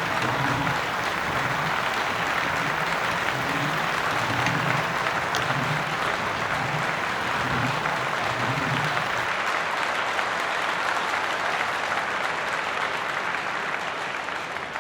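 Crowd applauding, a steady dense clapping that eases off slightly near the end.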